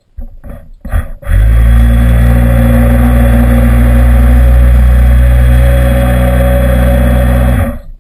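SuperTigre nitro glow engine of an R/C airboat starting: a few sputters, then a steady loud drone for about six seconds that cuts off abruptly.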